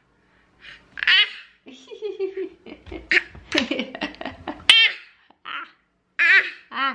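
A one-year-old baby laughing in a series of short, high-pitched bursts with brief pauses between them.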